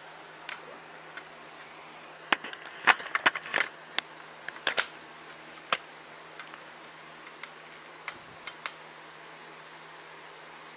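Sharp clicks and knocks of a camcorder being handled and fitted onto a tripod head, busiest from about two to five seconds in, with a few single clicks later. A faint steady hum lies underneath.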